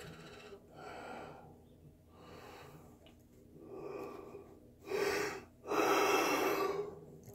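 A man breathing heavily through an open mouth: a series of about six audible breaths, getting louder, the last two the loudest.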